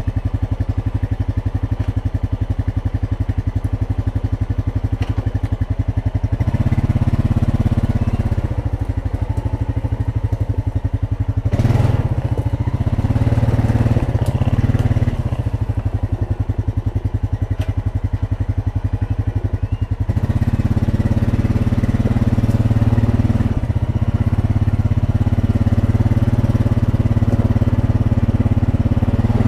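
Honda Rancher ATV's single-cylinder four-stroke engine running while riding: it starts at low revs, with the pulses of the engine plain to hear, and the revs rise about six seconds in. They ease off for a few seconds past the middle and pick up again about twenty seconds in. A brief clatter about twelve seconds in is followed by a few seconds of scraping hiss.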